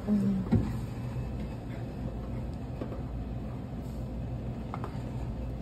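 Steady low background hum at a buffet counter. A short hummed voice and a soft knock come in the first second, with faint light clicks later on.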